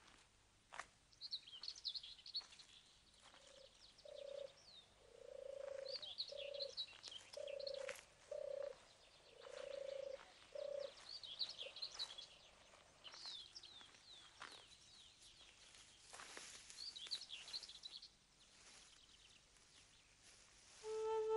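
Faint outdoor birdsong: small birds chirping in short high bursts every few seconds, with a lower call repeated about eight times in short notes from about three to eleven seconds in.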